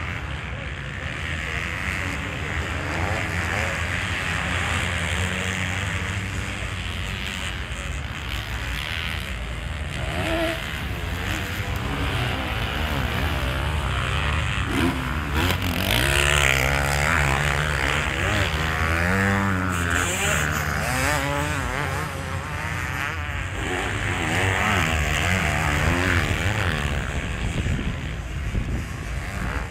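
Several motocross dirt bikes running on a sand track, their engines revving up and down as they ride the course. The engines are loudest and rise and fall most clearly about halfway through, as the bikes come nearer.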